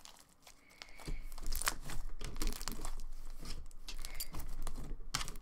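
Thick slime with foam beads being squeezed and pressed by hand, giving dense irregular crackles and small pops that start about a second in. The slime has been stiffened with added activator.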